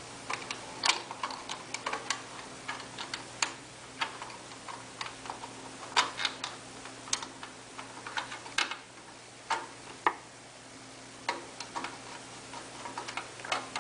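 Mounting screws being turned by hand with a screwdriver to fasten a light fixture to its electrical box: irregular small clicks and ticks of metal at uneven intervals.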